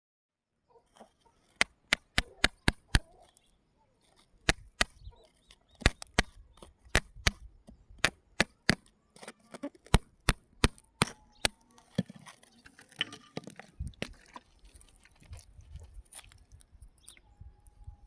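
A pointed digging tool jabbing into gravelly sand and striking pebbles: a quick run of sharp knocks, several a second, with a short pause, then more knocks. About two-thirds of the way through, the knocks give way to softer scraping and scratching in the grit.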